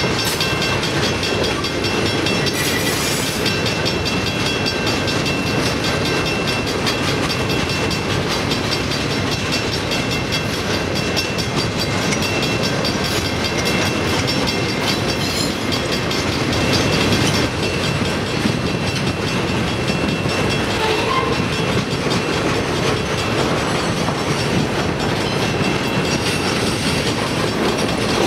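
Freight cars (boxcars, tank cars and covered hoppers) rolling past close by: a steady, loud noise of steel wheels running on the rails, with a regular clickety-clack of wheels over the rail joints.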